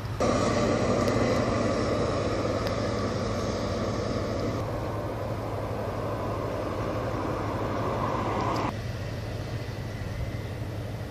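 Steady vehicle-like noise, louder from just after the start until about three-quarters of the way through, where it drops off abruptly, over a constant low hum.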